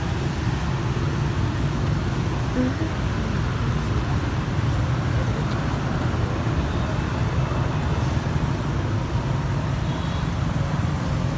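Steady, even road traffic noise with a heavy low rumble.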